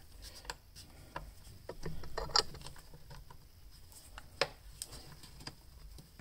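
Screwdriver turning a small screw into a chainsaw's plastic cover, with faint scraping and a few sharp clicks of metal on plastic, the loudest about two and a half seconds in.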